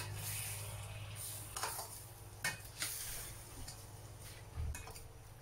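Metal spoon stirring chicken pieces in a stainless steel frying pan over a gas burner, the meat sizzling, with a few sharp clinks of the spoon against the pan.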